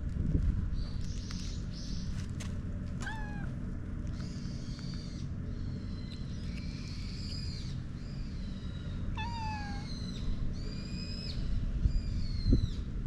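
Stray cat meowing in a series of short, high-pitched calls, over low rumbling noise and a few bumps on the microphone.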